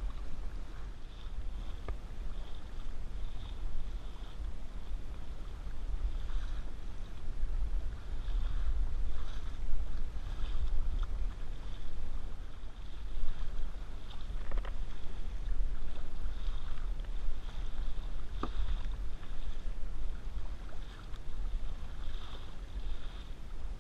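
Kayak paddle strokes: the double-bladed paddle dipping and splashing in choppy sea water about once a second, with wind rumbling on the microphone and a few light knocks.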